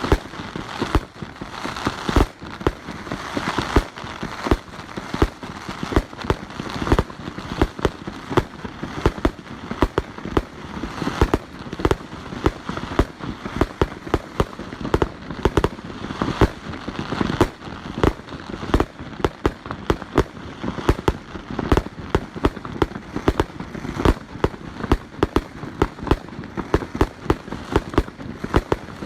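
Aerial fireworks going off in quick succession: sharp bangs several times a second over a continuous crackle.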